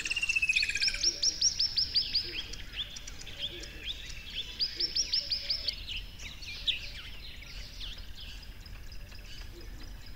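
Songbirds chirping and singing, with two quick runs of short, high notes that each drop in pitch, several a second, plus a trill at the start and scattered chirps throughout.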